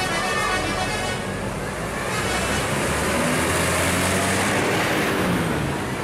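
Adiputro Jetbus 3+ tour coach driving past at close range: a steady low engine drone with tyre and road noise that swells and is loudest in the second half, easing off near the end.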